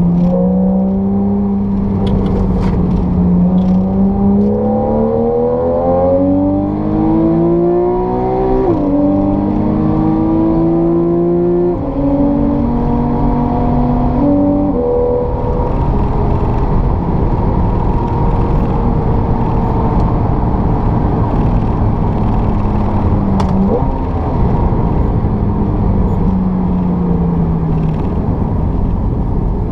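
Porsche 911 (991) Carrera GTS's naturally aspirated 3.8-litre flat-six, heard from inside the cabin, pulling hard with revs climbing and upshifts about nine and twelve seconds in. It then runs at a steadier, lower pitch, with a short blip of revs near the end before the pitch falls.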